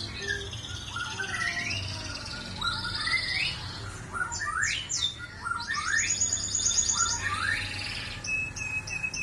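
Canary singing vigorously: a continuous run of rising whistled notes and fast trills, with a dense, rapid trill about six seconds in.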